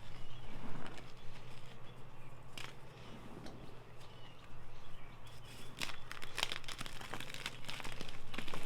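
Blocks of Ader gym chalk mixed with holi powder and glitter being crushed: irregular crunches and crumbling crackles, growing thicker and louder from about five and a half seconds in, over a low steady hum.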